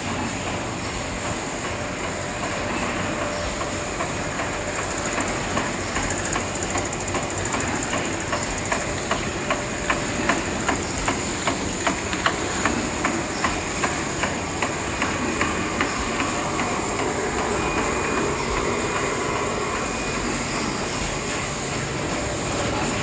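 Bottling-line machinery running: slat-chain bottle conveyors with a steady mechanical clatter and a high hiss. From about nine to sixteen seconds in, a regular sharp clacking about twice a second rises above it.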